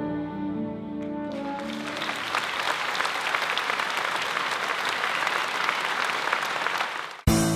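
An orchestra of strings and brass holds its last chord, which ends about a second in, and an audience breaks into steady applause. Near the end the applause cuts off suddenly and louder, different music with plucked strings starts.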